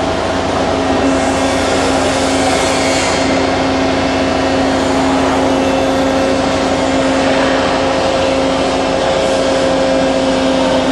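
Chip compression (briquetting) machine running: a steady mechanical hum with a few steady tones held through it.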